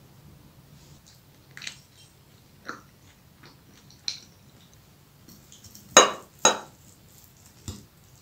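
Metal fork cutting into a crisp grated-potato and minced-meat bake and clinking against a ceramic plate: about six scattered sharp taps, the two loudest close together about six seconds in.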